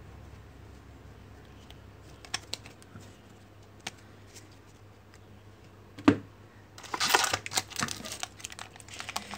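Trading cards being handled and flicked through: a few light clicks, one thump about six seconds in, then a quick run of crisp card-on-card snapping and rustling.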